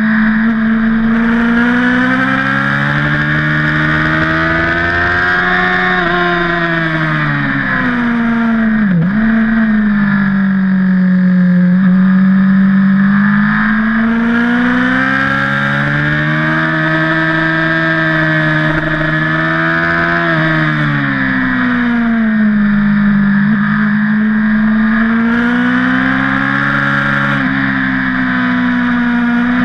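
BMW HP4 superbike's inline-four engine running hard on a race track, its note rising in long sweeps under acceleration and falling as the bike slows for corners, three times over, with a sharp dip about nine seconds in. Wind rush on the microphone comes and goes with speed.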